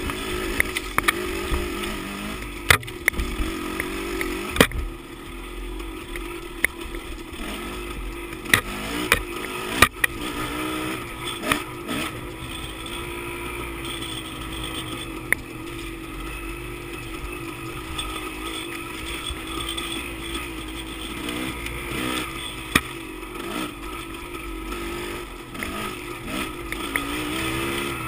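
Dirt bike engine running at moderate revs along a rough trail, its pitch rising and falling a little, with frequent sharp knocks and rattles from bumps.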